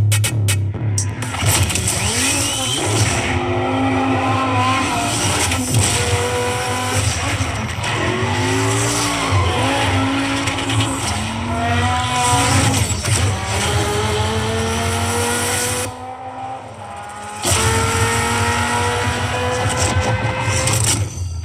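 Dodge Viper's V10 engine revving hard and climbing repeatedly through the gears, with tyre squeal, as a car-advert soundtrack played back at full volume through a portable Bluetooth speaker. There is a brief lull about three-quarters of the way through before the revs climb again.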